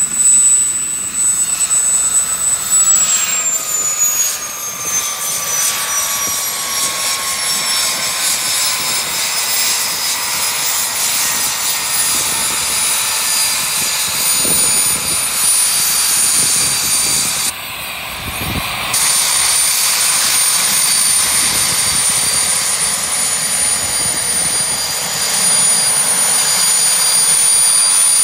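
Turbomeca Astazou XIVH turboshaft of an SA342J Gazelle helicopter running with the main rotor turning: a high turbine whine over a steady rushing noise. The whine falls in pitch over the first several seconds, then holds steady.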